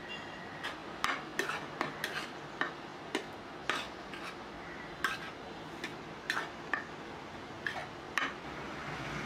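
Metal spatula clinking and scraping on a flat griddle while food is tossed and mixed in gravy: irregular sharp clinks, roughly one to two a second.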